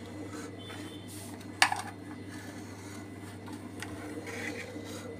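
Table knife scraping and tapping against the sides of an aluminium tin as it is run round the edge to loosen a set pudding, with one sharp click about a second and a half in. A steady low hum runs underneath.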